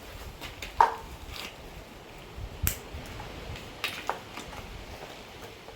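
A few sharp clicks and knocks of small plastic and metal parts being handled, the loudest about a second in, with the compressor not running.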